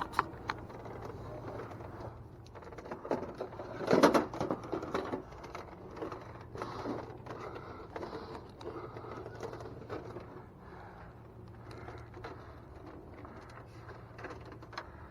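Indoor shop ambience: a steady low hum with scattered faint handling and rustling noises, and one louder knock about four seconds in.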